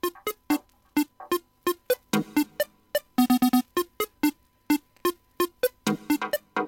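Electronic background music: a sparse break of short, separate synthesizer notes with gaps between them, over a faint steady tone.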